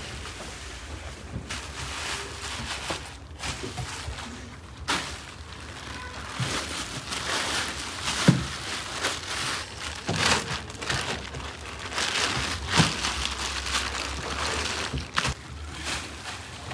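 Thin plastic bags rustling and crinkling as large lumps of dough are pulled out of them by hand, with a few louder knocks as the dough is handled.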